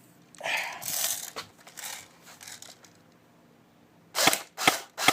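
CM032A airsoft gun fitted with a home-made suppressor firing three quick single shots, each a short sharp crack about half a second apart, in the last second. Earlier there is a rustle of handling noise.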